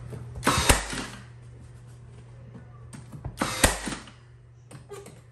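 Ridgid battery-powered cordless nail gun firing twice, about three seconds apart, driving nails through a wooden batten strip into the wall; each shot rises briefly to a sharp crack.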